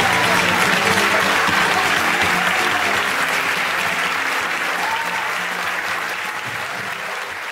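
Large audience applauding, with steady dense clapping that fades out gradually.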